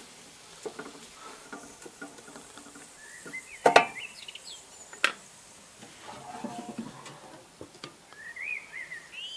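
Wooden spatula scraping and knocking against a stainless steel gastronorm pan while stirring onions and garlic in oil, with two sharp knocks about four and five seconds in. Birds chirp briefly now and then.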